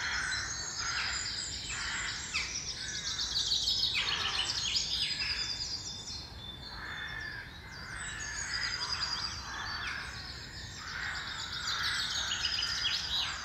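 Woodland bird chorus: many birds singing and calling over one another, with repeated harsh caw-like calls among the song.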